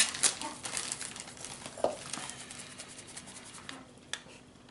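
A packet or wrapper being crinkled and torn at while someone struggles to open it. The rapid crackles thin out and fade over the last second or so.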